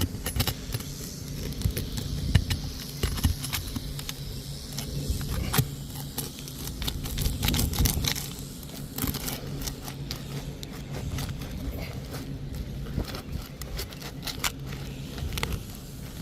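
Tool being worked under asphalt roof shingles to break their seal: irregular scraping, crackling and clicks as the brittle shingle begins to rip.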